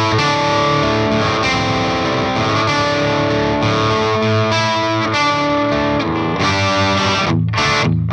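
Electric guitar played through a Peavey Bravo 112 all-tube combo amp on the lower-gain side of its gain channel, into Vintage 30 speakers: overdriven, Marshall-style classic-rock crunch chords, with a couple of short breaks near the end.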